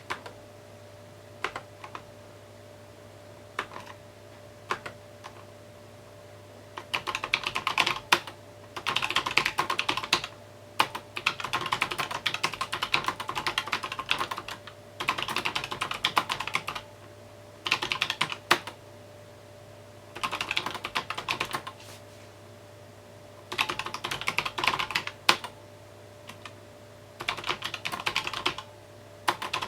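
Typing on a mechanical keyboard. A few single keystrokes come in the first several seconds, then rapid bursts of typing with short pauses between them.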